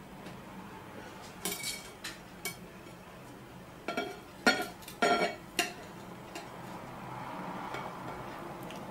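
Kitchen knife and cucumber slices tapping and scraping against a ceramic dinner plate as the slices are laid out and fanned: a run of sharp clinks and knocks, mostly in the first half to two-thirds.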